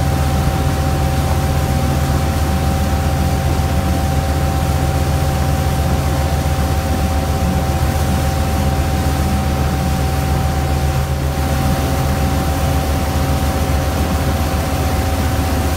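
Motorboat engine running steadily at towing speed, a constant drone under the rush of the wake and wind.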